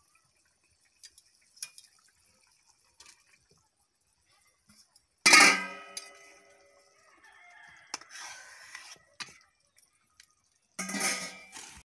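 A rooster crowing twice, loudly, once about five seconds in and again near the end, with a few faint clicks in between.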